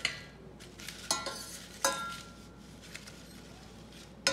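Metal ladle stirring paper scraps in a stainless steel saucepan, knocking against the pot in a few sharp clinks that ring on briefly, one near the start, one about a second in and one near two seconds, with another at the very end.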